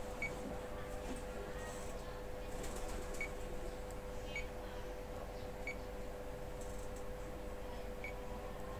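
Light, scattered taps of a stylus on a radio transmitter's touchscreen, a few irregular ticks over a steady faint hum.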